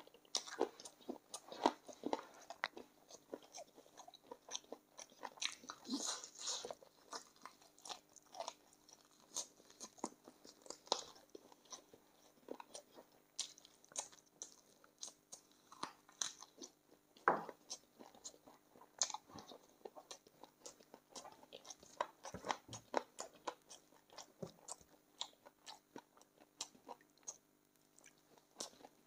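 A person chewing and crunching on spicy chicken feet close to the microphone: many irregular crunches and smacks of varying loudness.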